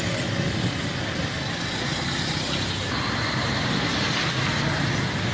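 Steady road-traffic and engine noise, a continuous low rumble with a hiss over it.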